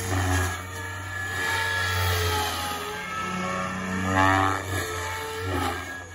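SAB Goblin Kraken radio-controlled helicopter with a three-blade main rotor in flight: a steady low rotor thrum with a drive whine whose pitch rises and falls as it passes and manoeuvres.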